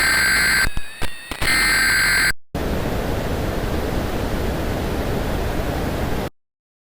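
A loud electronic tone made of several steady pitches, breaking up and wavering in pitch briefly about a second in, then cutting to about four seconds of static hiss that stops abruptly.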